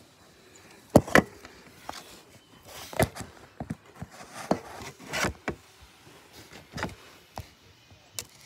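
Phone handling noise: a string of irregular knocks and rubs as fingers grip, shift and turn the phone, with the loudest bumps about a second in and near the middle.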